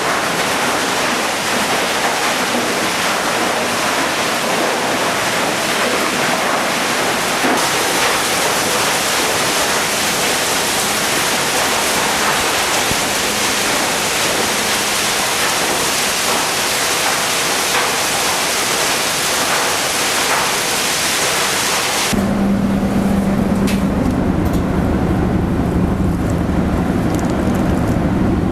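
Eidal Model 400 vertical tub grinder, driven by two 200-hp electric motors, grinding wooden pallets: a loud, dense crunching and crackling noise. About three-quarters of the way through it changes suddenly to a lower, steadier machine hum with a held tone.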